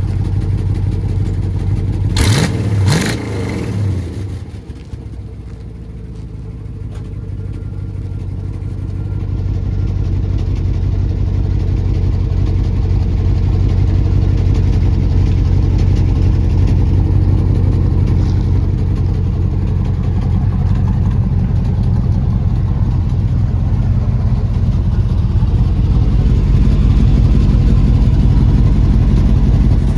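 Chevy 350 small-block V8 in an '87 Silverado pickup, blipped by the throttle twice about two seconds in, then running steadily, its level slowly rising over the first ten seconds.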